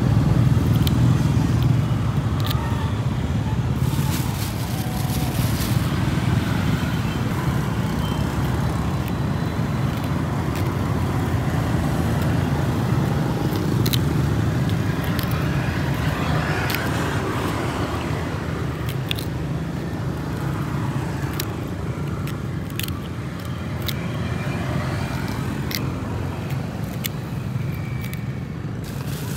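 Steady low outdoor rumble, with faint scattered ticks and scrapes of a small knife paring and cutting a firm green fruit held in the hand.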